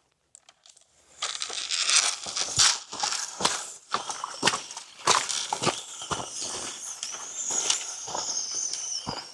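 Footsteps crunching over dry ground cover: an irregular series of crunches and crackles that starts about a second in.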